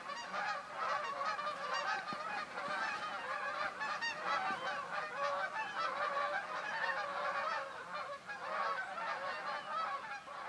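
A large flock of sandhill cranes calling as it flies overhead: many calls overlapping into a continuous chorus.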